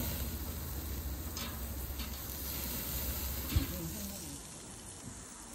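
Chunks of meat sizzling on a wire-mesh grill over an open fire, with a few faint crackles. A single short thump about three and a half seconds in.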